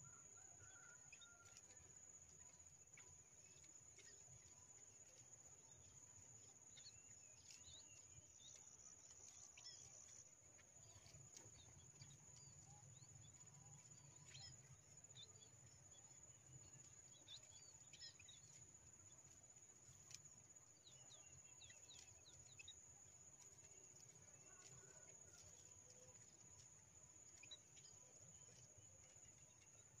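Very faint, scattered short chirps of small birds, munias (emprit) around a bamboo trap cage, over a steady high-pitched whine and a low rumble.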